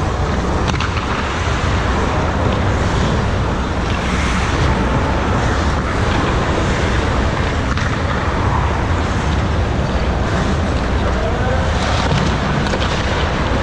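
Steady loud rushing noise of an ice hockey rink, with a few faint clicks from the play at the far end.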